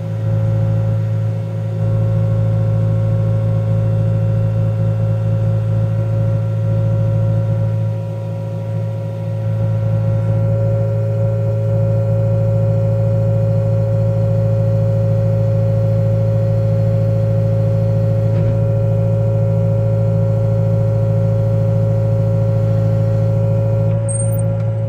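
Wheeled excavator's diesel engine running steadily under load, heard from inside the cab, with a steady whine over it as the boom lifts a slung load; the engine note dips briefly twice.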